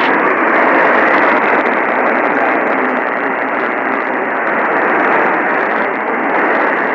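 Steady static hiss from a radio receiver with no clear signal coming through. It holds level throughout, with the narrow, muffled tone of radio audio.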